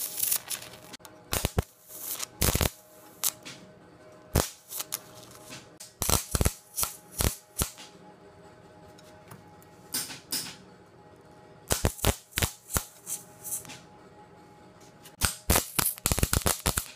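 Wire-feed welder striking short tack welds on 3/16-inch cold-rolled steel rod: sharp arc crackles, each well under a second long, coming in clusters with short pauses between.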